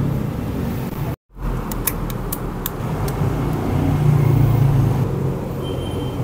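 Steady low rumble of road traffic, swelling a little around four to five seconds in, with a brief dropout about a second in followed by a few sharp clicks.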